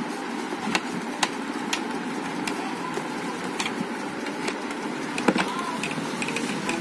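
Scattered light clicks and taps of a thin tool and hands on the plastic case of a set-top box, over a steady background noise.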